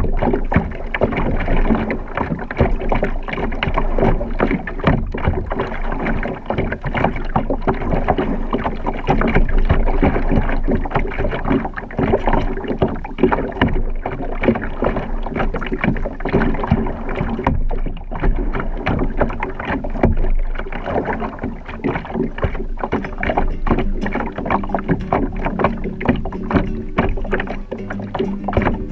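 Lake water lapping and slapping irregularly against a plastic kayak hull, with splashes of water. Near the end an acoustic guitar is played.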